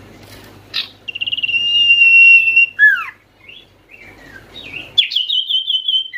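Common iora (cipoh) singing: a rapid trill that runs into a long held whistle, a down-slurred note, a few short calls, then a quick run of repeated notes ending in another downward slur.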